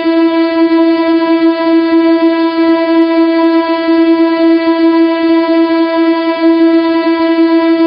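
The 'too much testosterone' meme sound effect: a single loud, buzzy tone held at one steady pitch, rich in overtones.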